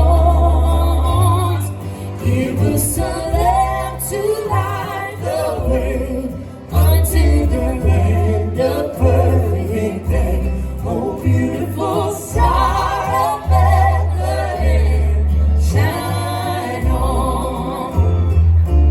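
Music: singing with vibrato over held bass notes that change every second or so.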